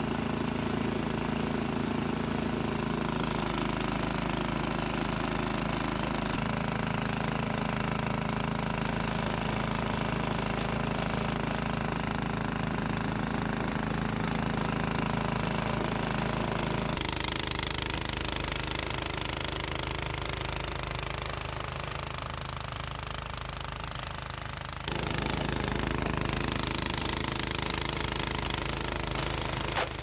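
Toro Power Max 828 two-stage snowblower running steadily under load as it clears heavy, wet snow, its engine and auger churning together. The tone shifts abruptly a few times, most clearly about halfway through and again near the end.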